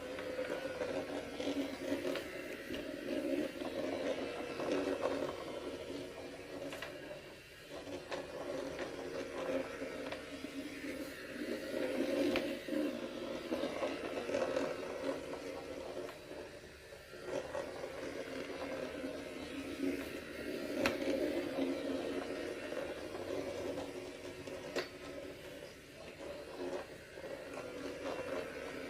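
Robot vacuum cleaner running, its motor and brushes making a steady hum with scattered clicks and scrapes, dipping briefly twice.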